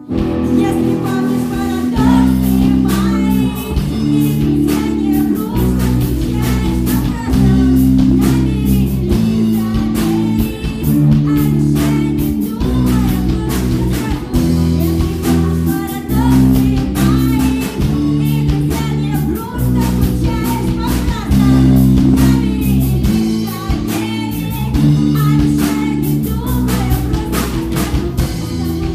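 Live band playing a song: a drum kit keeping a steady beat, electric guitar and keyboard over a held bass line, with a female voice singing.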